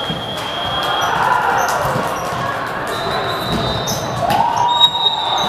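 Echoing large sports-hall ambience: volleyballs being hit and bouncing on the court, with scattered high squeaks and distant voices. The sharpest ball strike comes near the end.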